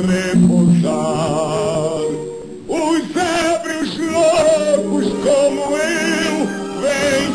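A man singing a slow, dramatic song with wide vibrato over instrumental accompaniment, with a short lull about two seconds in before the voice comes back on a strong held note.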